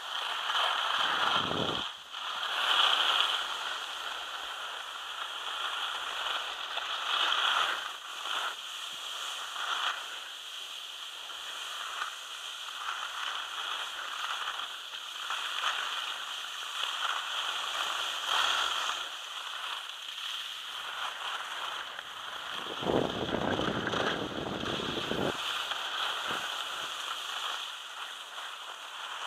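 Skis hissing and scraping over hard-packed snow on a downhill run, swelling and fading as the skier turns. About two-thirds of the way through, wind buffets the microphone with a low rumble for a couple of seconds.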